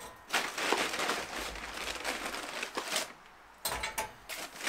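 Charcoal poured from a paper bag into a metal chimney starter: a rattling, crunching pour of pieces for about three seconds, then a few short clinks.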